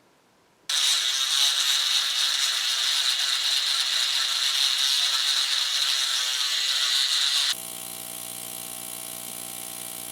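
A small electric power tool running. A loud, even rushing noise starts suddenly and lasts about seven seconds, then changes to a quieter, steady motor hum with a clear pitch, which stops abruptly near the end.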